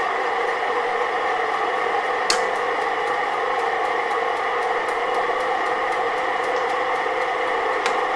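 An old Colchester lathe running under power with no work in it, a steady mechanical whirr of motor and gearing made of several steady tones, with two sharp clicks, one about two seconds in and one near the end.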